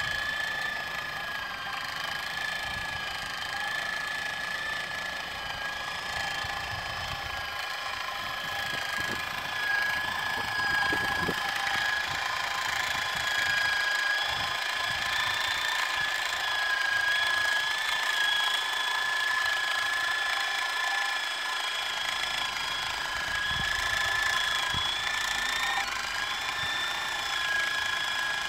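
Handheld portable electric sewing machine stitching the seam between two rolls of hybrid turf, its motor running with a steady high whine. The pitch dips briefly near the end, then recovers.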